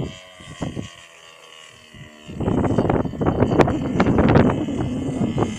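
Radio-controlled model airplane's engine droning steadily in the air. From about two seconds in, loud gusty wind buffeting on the microphone covers it.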